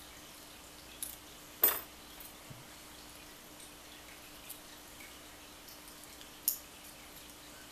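Small metal lock pins and picking tools clicking against a hard surface while a pin-tumbler lock is taken apart: a few sharp clicks, the loudest about a second and a half in and another about six and a half seconds in, with fainter ticks between, over a faint steady hum.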